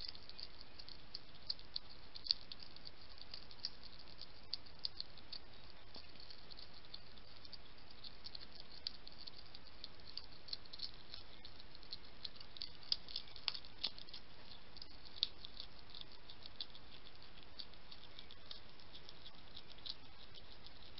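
Two European hedgehogs eating dry food from a plate: irregular crunching and clicking of the pellets as they chew and nose through them, over a steady hiss.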